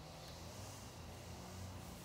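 Faint steady low hum with soft hiss: room tone, with no distinct sound from the soldering iron on the joint.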